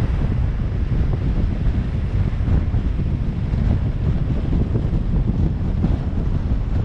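Wind buffeting the microphone: a steady, loud low rumble with no horn sounding.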